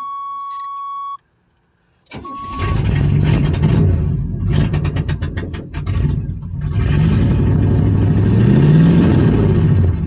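1985 Suburban's engine cranking on the starter, then catching and running, revving up and down as the gas pedal is pumped: a hard start on a Quadrajet carburetor whose accelerator pump does not work well. It opens with a steady buzzer tone that cuts off, sounding briefly again as the cranking begins.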